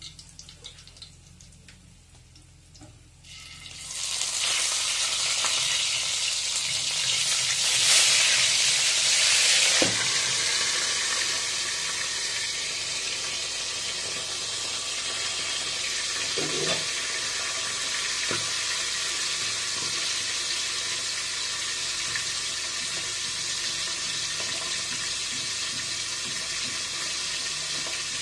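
Dalagang bukid (fusilier fish) frying in hot oil in a wok: a sizzle starts suddenly about four seconds in as the fish go into the oil, is loudest for the next several seconds, then settles to a steady sizzle.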